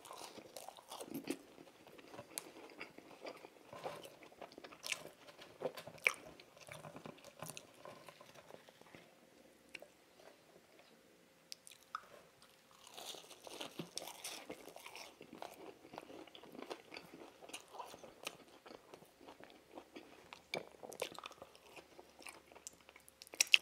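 A person chewing and biting fast food close to the microphone, mostly French fries, with a run of short crunches and clicks; the eating quietens for a few seconds around the middle and picks up again.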